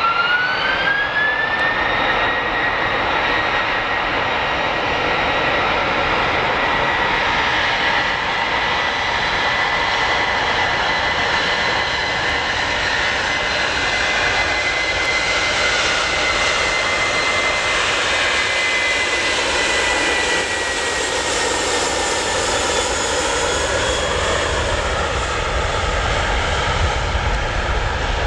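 Airbus A330-200's twin turbofan engines spooling up to takeoff power: a loud whine rises in pitch over the first couple of seconds, then holds steady during the takeoff roll. About twenty seconds in the whine fades and drops in pitch, and a deep rumble builds near the end.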